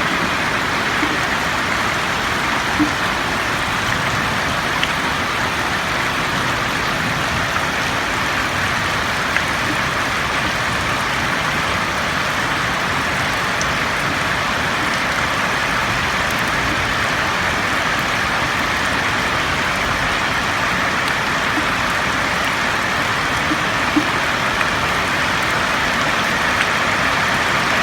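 Steady rain falling on a roof: an even hiss of many drops, with a few louder single drops ticking out now and then.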